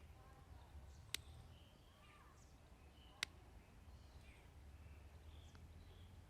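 Near silence over a low hum, with faint bird chirps and two sharp clicks, about a second in and again about three seconds in.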